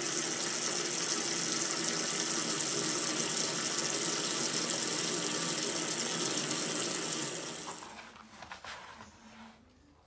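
Water running from a tap into a bathtub, a steady splashing gush as the bath fills. The flow dies away over a second or two about seven to eight seconds in, with a few faint clicks after.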